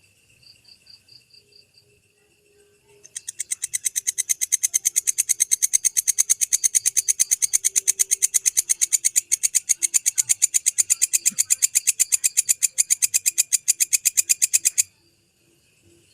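Walang kecek bush cricket stridulating: a few faint chirps, then about three seconds in a loud, fast run of evenly spaced dry, high-pitched pulses, roughly ten a second, which stops abruptly near the end.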